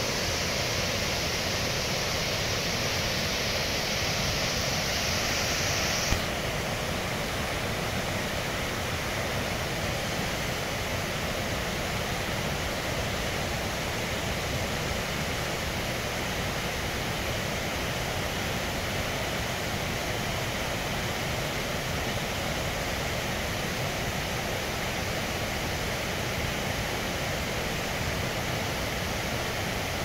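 Steady rush of a waterfall's falling water. About six seconds in there is a single click, and the higher hiss drops away abruptly.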